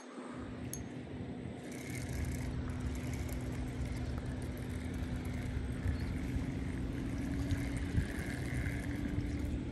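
Steady low motor hum: a constant tone over a rumble, coming in suddenly and growing a little louder over the first couple of seconds.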